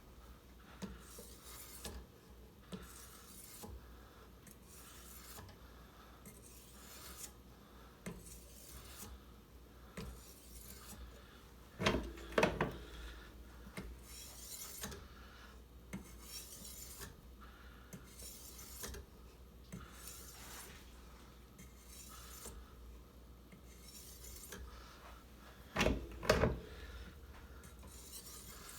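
Abrasive sharpening stone on the guide rod of a Ruixin Pro guided sharpener, stroked across a clamped kitchen knife's edge with a repeated rasping hiss, roughly one stroke every second. Two louder clattering knocks come about twelve seconds in and near the end.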